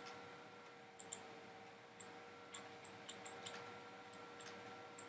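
Faint computer mouse clicks, about ten at irregular intervals, several in a quick run near the middle, over a low steady hum.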